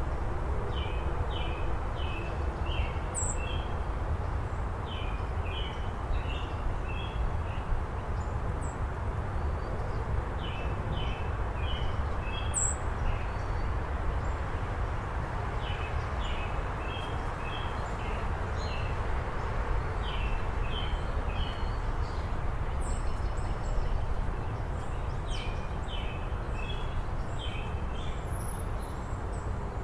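A small songbird repeating the same short phrase of quick, high chirps, about two seconds long, every four to six seconds, over a steady outdoor background hiss. There are a couple of faint sharp ticks near the start and middle.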